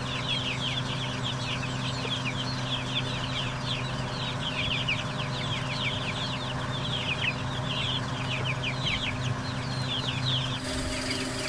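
A large brood of young chicks peeping continuously: many short, high, downward chirps overlapping, over a steady low hum.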